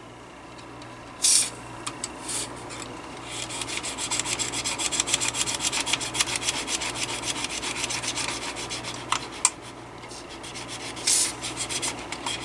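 DeoxIT contact cleaner hissing out of its aerosol can through the straw in three short bursts into the fan's speed-control switch. Between the bursts comes a fast, even rubbing or scraping, several strokes a second, as the control is worked back and forth to spread the cleaner into the dirty contacts.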